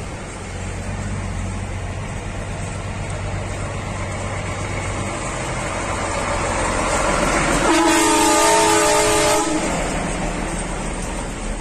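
Semi-truck approaching and passing close by, its engine and tyre noise building, then a loud air horn blast held for about two seconds as the cab goes by, several steady tones together.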